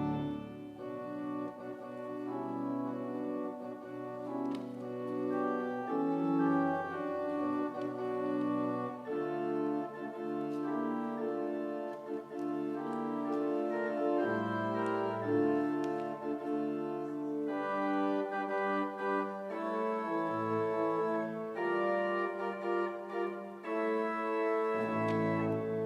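Organ playing slow, sustained chords, the harmony and bass notes changing every second or two.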